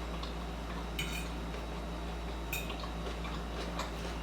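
Cutlery clinking and scraping against a dish while salad is eaten: a few sharp clinks, the clearest about a second in and again about two and a half seconds in, over a steady low hum.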